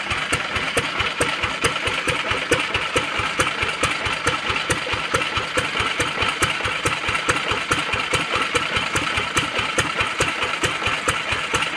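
1964 Yongxing Machinery kerosene engine running steadily at idle, with an even beat of firing strokes, several a second.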